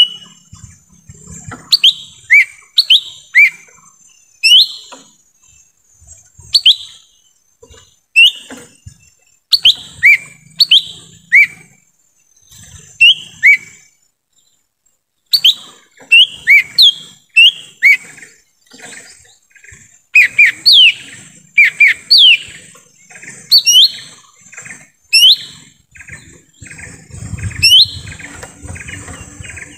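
Lesser green leafbird (cucak ijo mini) calling: loud, sharp whistled chirps that sweep in pitch, often two or three in quick succession, with a pause of a few seconds midway. A faint steady high hiss sits underneath.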